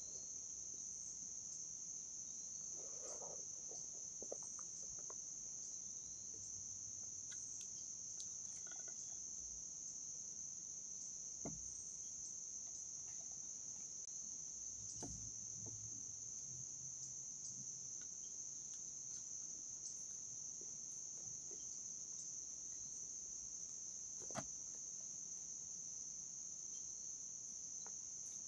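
Steady, high-pitched chorus of insects, with a few faint, scattered clicks and knocks. The sharpest click comes about three-quarters of the way through.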